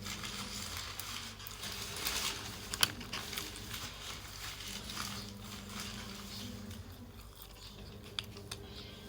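Close-up chewing and biting into a kota, a stuffed quarter-loaf sandwich, with irregular crunchy clicks and one sharp louder click about three seconds in.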